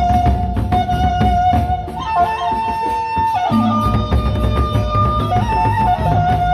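Gendang beleq ensemble playing: large Sasak barrel drums beaten in dense strokes with clashing cymbals, under a sustained melody note that steps up in pitch about two seconds in and drops back down near the end.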